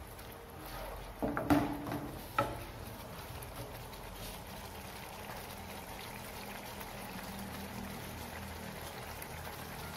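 Watery masala gravy simmering and bubbling in a nonstick frying pan, with a few sharp knocks about one to two and a half seconds in.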